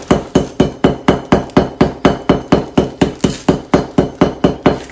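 Large kitchen knife chopping at a hard sugar loaf wrapped in paper, a fast even run of sharp knocks at about four to five a second.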